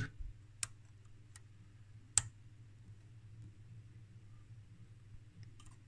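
A few faint, sharp clicks from a hand tool touching parts inside the opened instrument, the loudest a little over two seconds in, over a low steady hum.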